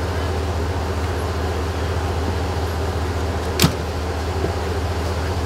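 An ambulance's engine idling with a steady low rumble. A single sharp knock comes about three and a half seconds in.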